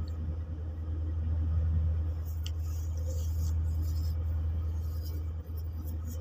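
Steady low hum with a faint background hiss, and a small tick about two and a half seconds in.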